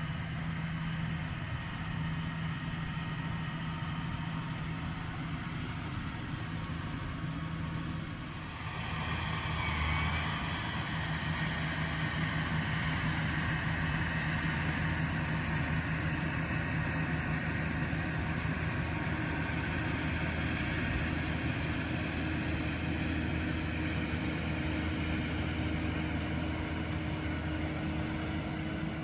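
Tractor engine running with a steady low hum, growing louder about nine seconds in and staying so.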